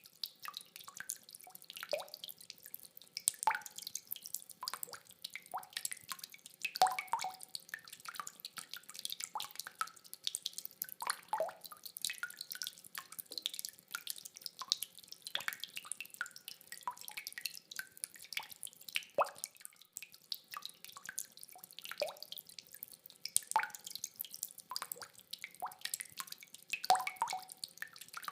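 Rainwater dripping: irregular, close drops falling several a second, each a short pitched plip, over a faint hiss of rain. No thunder.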